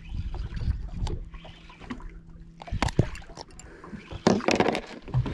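Small boat at sea: water lapping against the hull with wind on the microphone, a sharp knock about three seconds in and a louder burst of clattering noise near the end.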